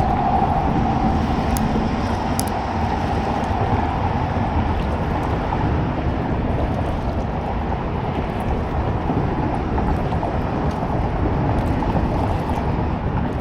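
Steady wind rumble on the microphone out on the water, with two faint clicks about two seconds in.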